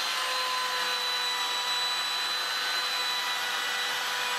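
Bosch router running at full speed with a steady high whine, routing out a hinge recess in a timber door frame.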